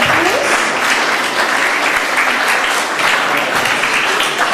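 Audience applauding steadily, a dense spread of many people clapping.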